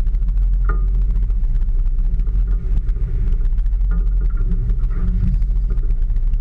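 Steady low rumble of a small boat at sea picked up by a boat-mounted camera, with a few brief higher-pitched tones about a second in and again around four to five seconds in.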